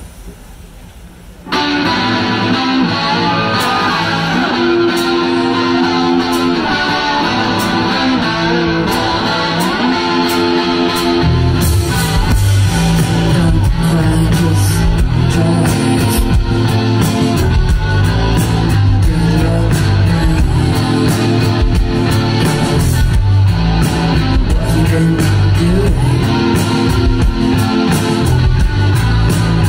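A post-punk band playing live through a PA: an electric guitar starts suddenly about a second and a half in, and bass guitar and drums join about eleven seconds in with a steady beat.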